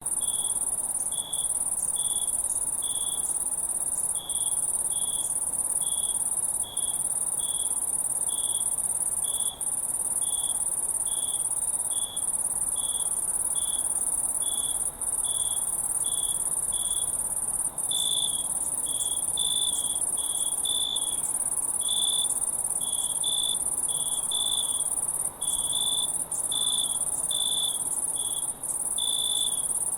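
Crickets chirping in a chorus: a continuous, very high-pitched trill under a steady run of lower chirps at about one and a half a second. The chirping grows busier and less regular about two-thirds of the way through.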